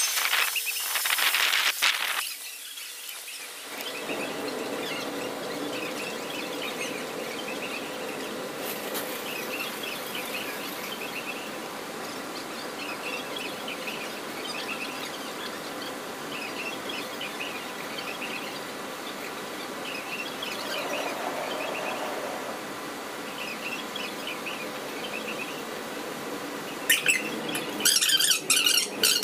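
Fast-forwarded ambience of an underground monorail station platform: a steady hum with scattered short, high chirping sounds that come from the sped-up playback. There is a louder stretch right at the start and a burst of sharp clatter near the end.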